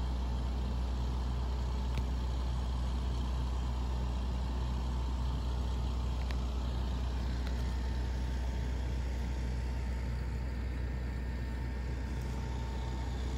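Diesel engine of a Grove RT60 rough-terrain crane running steadily at low revs, an even low drone with no change in pitch.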